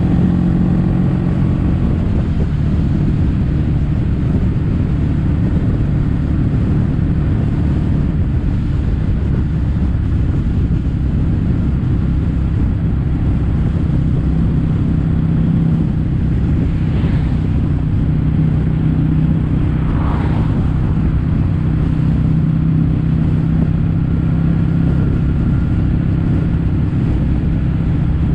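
Kawasaki W800's air-cooled parallel-twin engine running through Yamato stainless-steel Cabton-style silencers, a steady low exhaust drone at an even cruising speed.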